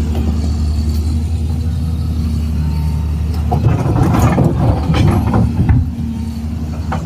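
Excavator's diesel engine running steadily. From a little past the middle it grows louder and rougher for about two seconds, with sharp knocks, as the machine works, then settles back to a steady hum.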